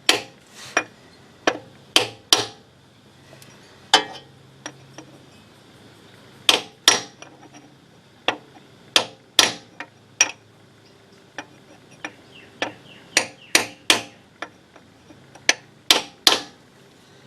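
Hammer tapping a pin punch to drive a new double-lip gearbox oil seal home in its housing. About twenty sharp metallic taps come in small irregular groups with short pauses between them.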